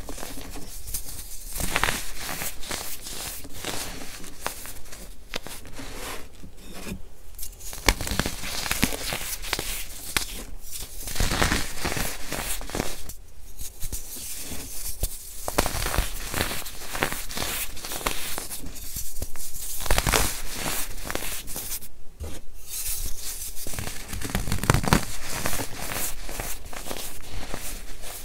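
Soap-bar-shaped blocks of dried baking soda being crushed and crumbled by hand, powder sifting down onto a loose pile: a dense crunching crackle with a few short pauses.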